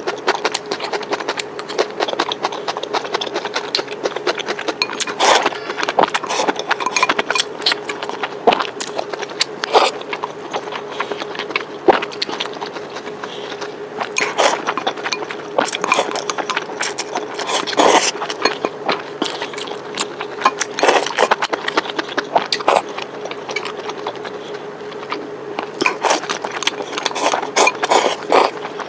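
Close-miked eating sounds: irregular chewing, crunching and wet clicking of food in the mouth, with a steady faint hum underneath.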